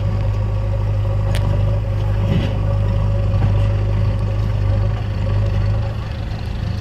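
Diesel engines of a JCB 3DX backhoe loader and a John Deere 5050D tractor running steadily as the backhoe digs and loads soil: a continuous low drone with a faint steady whine above it and a single short click about a second in.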